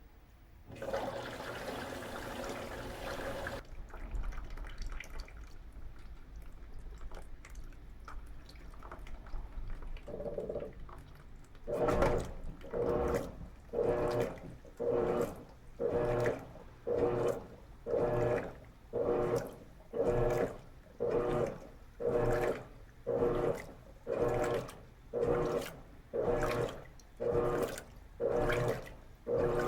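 Electrolux LT13B top-load washing machine filling with water for a load of sheets and towels. About twelve seconds in, its motor starts driving the agitator back and forth, a stroke about once a second, sloshing the load in the water.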